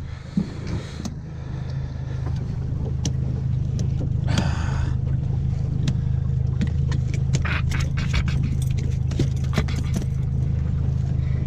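A boat motor runs with a steady hum, growing louder over the first two seconds. From about six seconds in, metal pliers click and scrape against the hook and lure as they are worked out of a brown trout's mouth.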